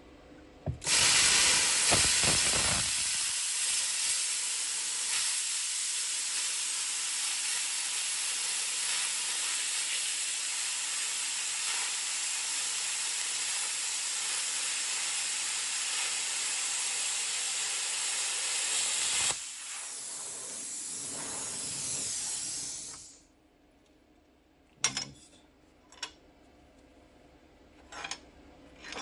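Bestarc BTC500DP plasma cutter cutting quarter-inch steel flat bar: a loud, steady hiss of air and arc starts about a second in and runs for about eighteen seconds. When the arc stops, the post-flow air hisses more quietly for a few seconds and then dies away. A few light metal clinks follow near the end.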